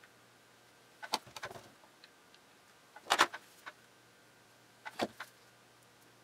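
Woodworking clamps being squeezed tight on a glue-up: short clusters of clicks and clacks, three of them about two seconds apart, the middle one loudest.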